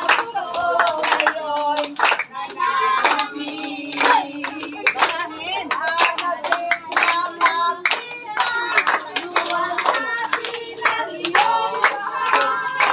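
A group of children singing a song together, clapping their hands along with it.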